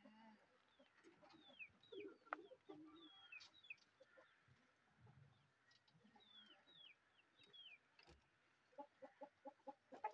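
Faint chickens: repeated short, high peeps that fall in pitch, then a quick run of clucks near the end.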